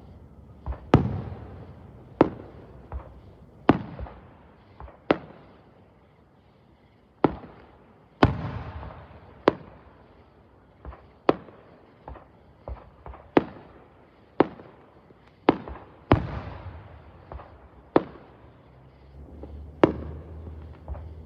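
Fireworks going off: a series of about fifteen sharp bangs, roughly one every second or two at uneven intervals, each trailing off in a short echoing rumble.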